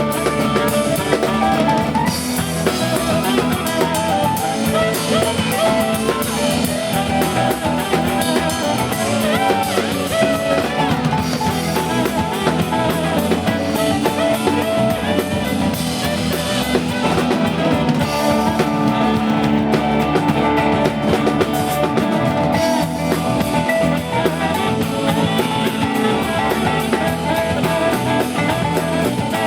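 Live band playing a song with a drum kit keeping the beat under pitched instrument lines.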